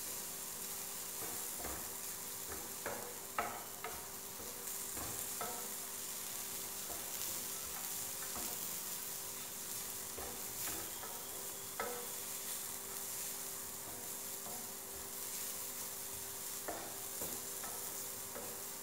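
Grated coconut, onion, dried red chillies and curry leaves dry-roasting in a nonstick pan without oil: a steady sizzle, with the wooden spatula scraping and tapping the pan now and then as it is stirred.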